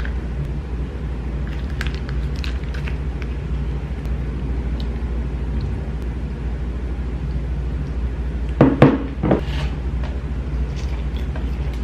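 Close-miked eating sounds of someone eating sauced king crab and lobster: scattered small wet clicks and smacks, with a louder burst of mouth noise about nine seconds in, over a steady low hum.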